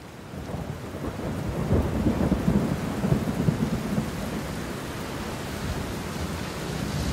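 Heavy rain pouring down onto a stone-flagged terrace, fading in over the first second. A deep low rumble runs underneath and is strongest about two to three seconds in.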